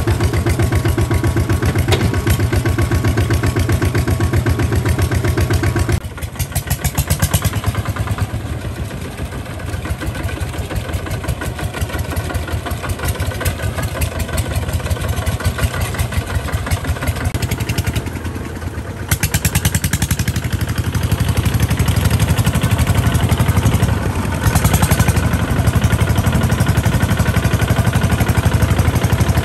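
Single-cylinder diesel engines of two-wheel walking tractors chugging with a fast, even beat as they drive through shallow water. The sound drops off abruptly about six seconds in and comes back louder around nineteen seconds.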